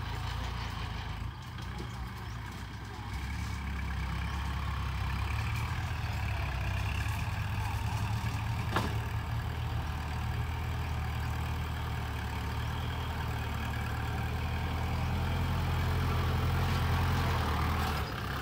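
Kubota tractor's diesel engine running as it works a sand pile, pushing with its front blade and towing a disc harrow. The engine sound grows louder from about fourteen seconds in and drops off just before the end, with a single sharp click about nine seconds in.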